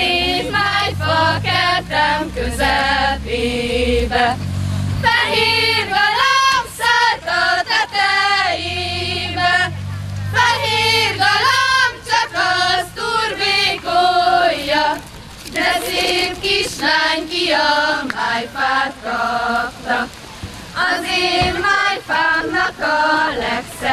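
A group of girls' voices singing a Hungarian folk song together in unison, unaccompanied, as sung by the dancers in a karikázó ring dance. The notes are held in long phrases with short breaks between them.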